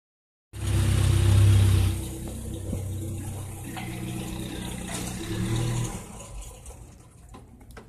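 Engine of a Chevrolet-chassis Grumman LLV mail truck running as the truck moves slowly past and pulls up; loudest for the first couple of seconds, then quieter, fading near the end.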